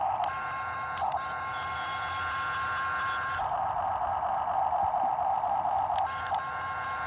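Small electric gear motors of remote-control toy construction vehicles whirring as the excavator swings its boom and the wheel loader drives. The whir changes several times with short clicks as the motors start and stop.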